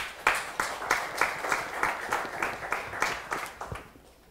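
Audience applauding, many hands clapping at once, the applause dying away near the end.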